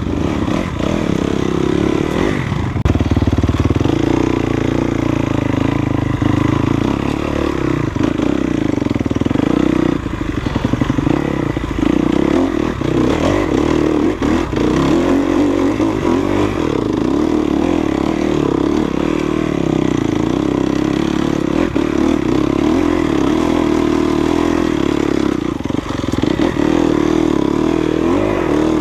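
Enduro dirt bike engine running under way on a trail, steady, with the throttle eased off briefly a few times.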